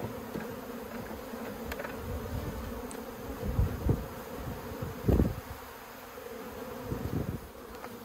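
Honeybees buzzing in a steady hum around open hive boxes crowded with bees from a very populous colony. A few low thumps can be heard near the middle.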